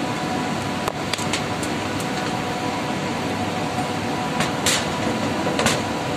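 Steady drone of running air-conditioning machinery, with a few light clicks and three short scrapes as clamp-meter test leads and probes are handled; the loudest scrape comes near the end.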